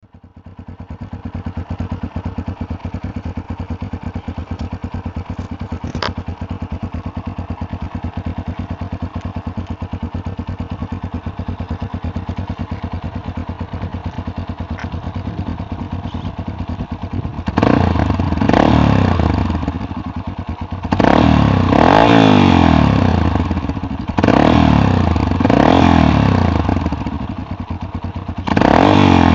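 Yamaha Tricker XG250's single-cylinder four-stroke engine, fitted with a K2-tec aftermarket muffler and silencer, idling steadily. In the last third it is revved in a series of short throttle blips that rise and fall.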